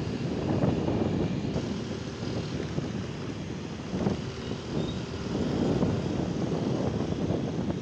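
Wind rushing over the microphone of a moving motorcycle, with its engine running underneath. The noise rises and falls unevenly.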